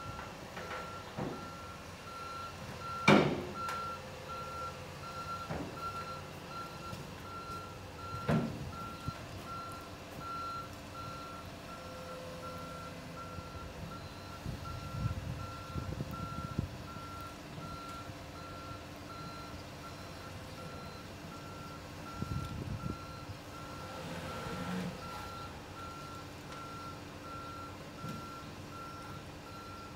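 Komatsu tracked excavator's travel alarm beeping steadily at one pitch while the machine is tracked onto a low-loader trailer. A loud metallic clank about three seconds in and another near eight seconds, with stretches of low rumbling from the steel tracks and machine on the ramps.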